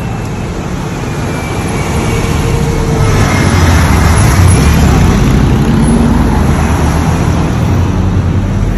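Road traffic passing close by. It swells about three seconds in as a motorcycle and a bus go past, then eases off.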